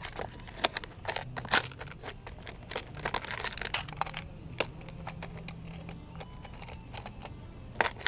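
Irregular clicks and knocks of hard plastic toys being handled: a toy trash bin and a Bruder toy garbage truck, with sharper knocks about a second and a half in and near the end, over a steady low hum.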